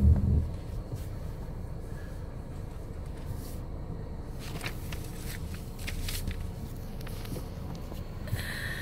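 Low, steady car-cabin rumble from the engine running, with a loud thump right at the start and a few light clicks and rustles in the middle.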